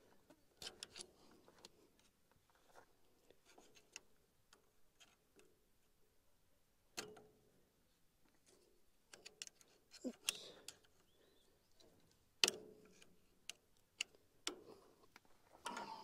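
Scattered metal clicks, taps and light knocks as parts of a hay baler's knife mechanism are handled and refitted by hand, with two sharper knocks around the middle and later on.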